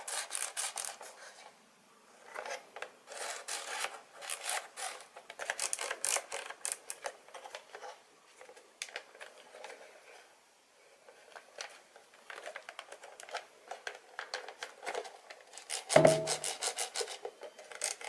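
The plastic housing of a 2010 Hyundai Santa Fe HVAC control panel being handled and pressed together: plastic rubbing and scraping with clusters of small clicks, dropping off for a few seconds in the middle, with a louder bump near the end. The halves are not snapping fully together.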